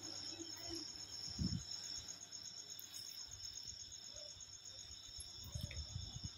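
Crickets chirping in a faint, steady, high-pitched pulsing trill, with a few soft low thumps about a second and a half in and again near the end.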